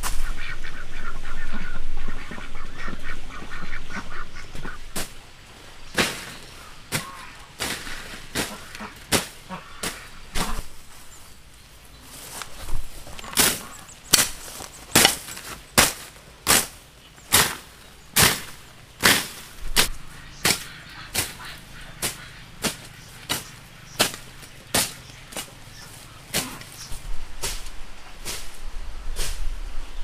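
Ducks quacking: a long run of short, separate quacks, about one or two a second.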